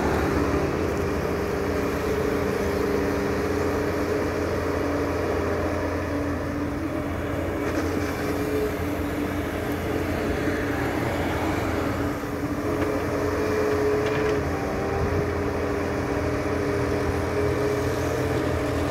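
Heavy diesel engines running steadily while a Doosan wheeled excavator digs and loads soil into a dump truck parked beside it. The pitch shifts a little about two-thirds of the way through.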